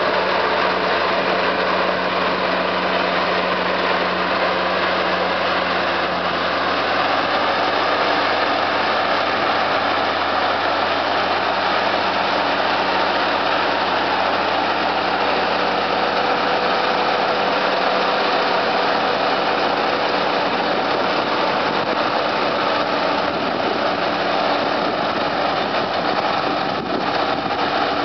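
Head-feed combine harvester running steadily, its engine and machinery giving a loud, even drone with steady tones; a further steady tone joins about halfway through.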